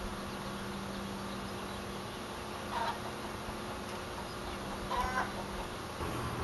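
A chicken clucking twice in the background, short calls about three and five seconds in, over a steady low hum.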